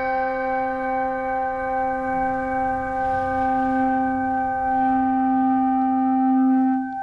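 A bell rung once for the name just read, ringing on as one steady low tone with higher overtones, wavering slowly before it dies away near the end.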